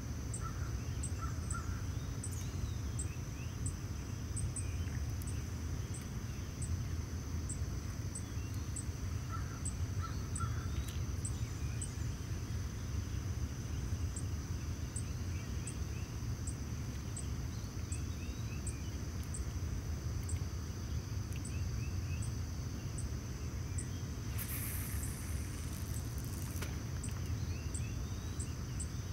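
Outdoor ambience: birds calling now and then, with crow-like caws, over a steady high insect drone with regular ticks about one and a half a second and a low steady rumble. A brief rushing hiss comes near the end.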